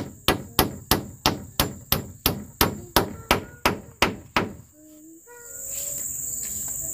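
Hammer striking wood at a steady rhythm, about three blows a second, while the hut's log walls are being fixed in place; the hammering stops about two-thirds of the way through. Insects then start a steady high drone.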